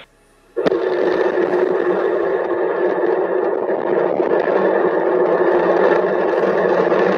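Starship S24's six Raptor engines firing in a static fire, heard as a loud, steady rushing noise. It starts abruptly about half a second in.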